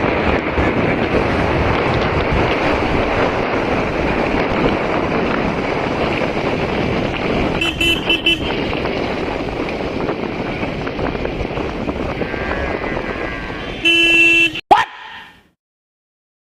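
Steady wind and road rush on a helmet-mounted camera while riding a motorcycle, with a vehicle horn tooting briefly twice about eight seconds in and a louder single honk near the end. The sound then cuts off to silence.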